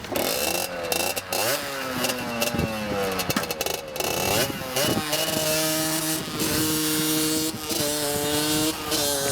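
Derbi Xtreme 50cc two-stroke engine with a Tecnigas Enox expansion-chamber exhaust, revving up and down in the first few seconds. It then runs at higher, steadier revs with short dips about every second and a bit.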